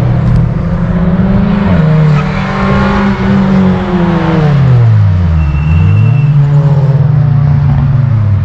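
Cars on a race circuit going past at speed, engines running hard. About five seconds in, one engine note drops steeply as a car passes, then another rises.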